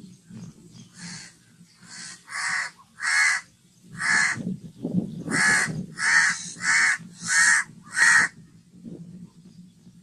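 A crow cawing: a run of about ten harsh caws, each short and a fraction of a second apart, starting about a second in and stopping about eight seconds in.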